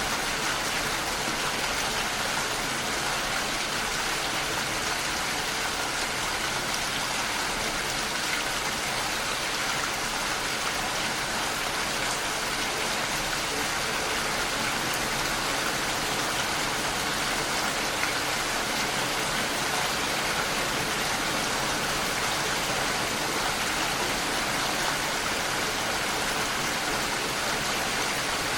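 Steady, even rain, a constant dense hiss of falling drops.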